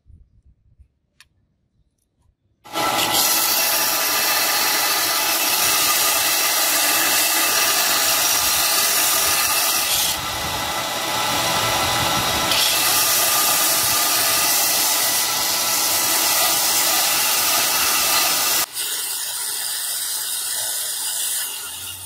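Belt sander running with a bearing-steel knife blank held against its abrasive belt: a loud, steady grinding hiss over the motor's hum. It cuts in suddenly a few seconds in, eases a little about three seconds before the end, and fades at the very end.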